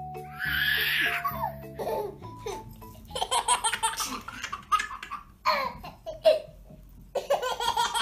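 A baby laughing and giggling in repeated short bursts. A short music jingle plays at the start and ends about two seconds in.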